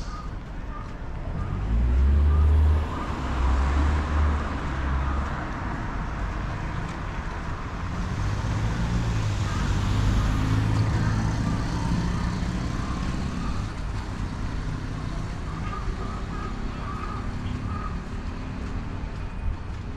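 Road traffic on the adjacent street: a heavy low rumble a couple of seconds in, then a passing vehicle's engine hum and tyre noise that swell and fade around the middle.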